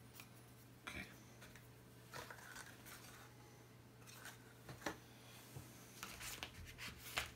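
Faint rustling and light taps of paper and cardboard packaging being handled and set down, a few scattered handling noises with the sharpest tap near the end, over a steady low hum.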